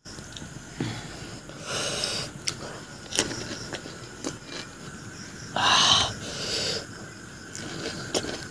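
Close-miked eating of pani puri: chewing with a few short sharp crunches and several louder hissy mouth-and-breath noises, the loudest about six seconds in.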